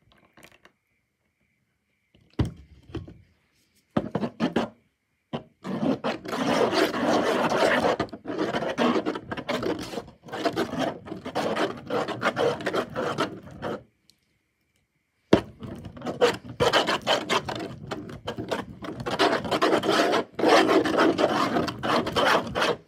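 Mixing tool scraping and smearing thickening slime across a hard tabletop: a few short strokes, then two long stretches of continuous stirring, parted by a brief pause just past the middle.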